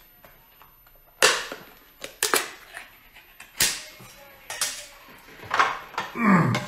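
Sharp clicks and crackles of food packaging being handled, a plastic seafood jar and a plastic packet, coming as about seven separate snaps spread over several seconds.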